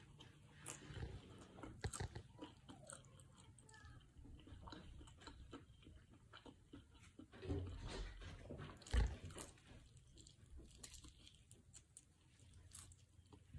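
Close-up eating sounds: biting into and chewing a crispy fried chicken drumstick, with faint irregular crunches of the breading and wet chewing clicks. A louder single knock comes about nine seconds in.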